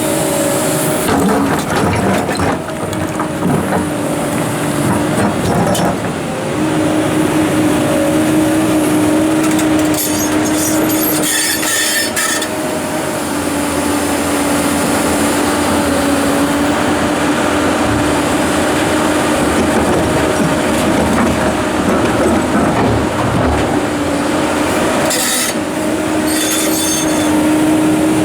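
Komatsu PC290-11 hydraulic excavator working: its diesel engine and hydraulics run with a steady whine, and two spells of rock scraping and clattering against steel come about ten seconds in and near the end, as the large rocks are handled.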